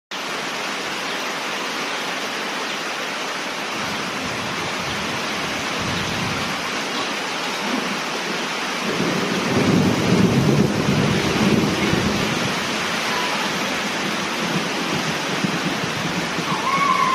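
Heavy rain falling steadily, with a long roll of thunder that builds from about four seconds in, is loudest around the middle, then slowly fades under the rain.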